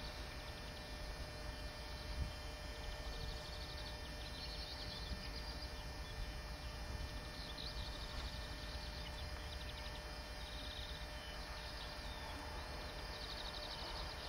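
Small birds chirping in short, fast trills, repeated every few seconds over a steady low background hum of open-air noise; no train is heard yet.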